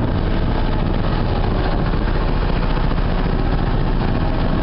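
A small fishing boat's engine running steadily while the boat is under way, mixed with the rush of its foaming wake along the hull.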